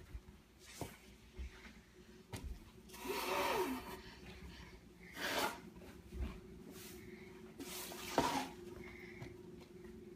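Quiet handling noise as snowboard gear and the camera are moved about: a few short rustles and scrapes, the longest about three seconds in, with low rustling between them.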